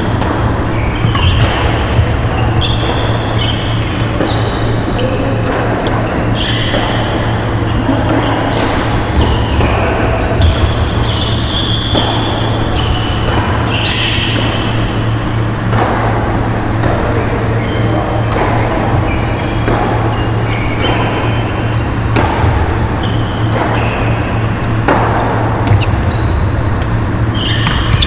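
Doubles badminton rally on a wooden hall court: repeated sharp racket hits on the shuttlecock and short shoe squeaks, over a steady low hum.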